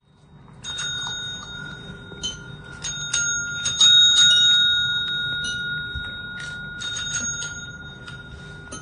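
A small bell rung over and over: a stream of clicks and knocks, each renewing a ringing tone that hangs on between strikes. It is loudest about four seconds in, then slowly dies away.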